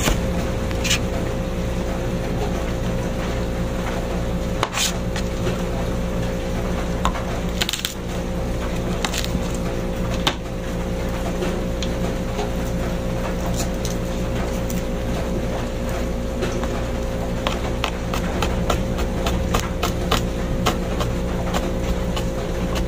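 Kitchen knife chopping red onion and garlic on a cutting board: irregular taps of the blade striking the board, more frequent in the second half, over a steady low hum.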